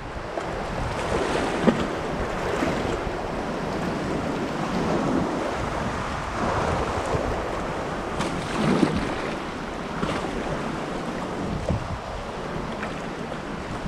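Kayak paddle strokes in calm sea water, with a soft splash and swish every few seconds, over lapping water and wind rumbling on the microphone.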